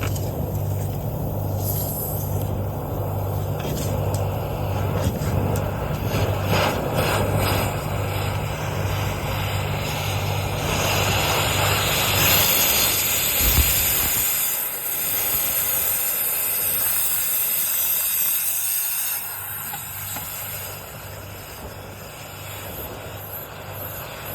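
Machine running with steady rushing noise and a low hum that pulses at an even rhythm; about 14 seconds in, the hum stops and the rushing continues, quieter near the end.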